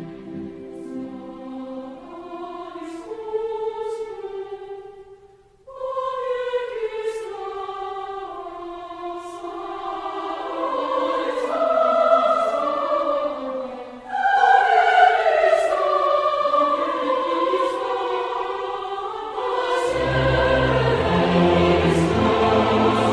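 Background music: choral, classical-style singing with sustained, gliding voices, building in fullness, with a deep bass coming in near the end.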